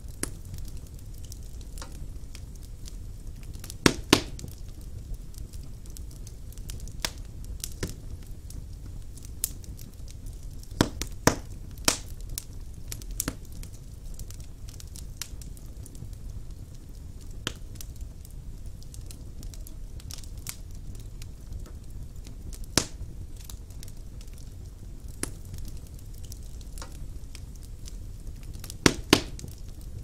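Wood fire burning in a fireplace: a low steady rumble with irregular crackling and scattered sharp pops from the logs, a few loud ones coming in quick pairs.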